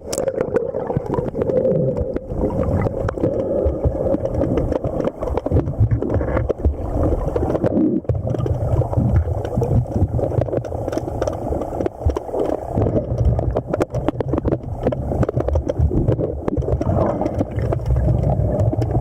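Underwater river noise picked up by a submerged camera: dense, low rushing and gurgling of moving water.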